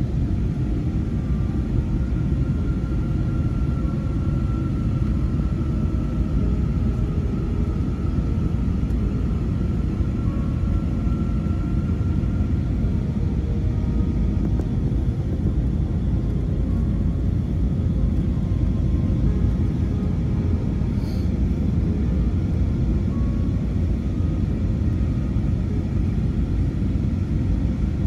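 Steady, even rumble of an Airbus airliner's jet engines and airflow, heard from inside the passenger cabin, with a faint whine above it.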